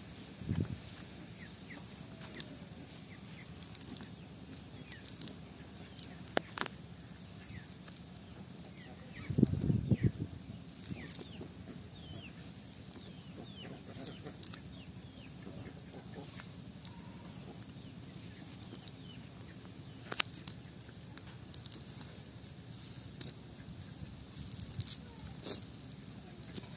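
Birds chirping with short, quick calls over a steady outdoor background, mixed with the handling noise of a cast net being gathered up by hand. A dull thump comes about nine and a half seconds in.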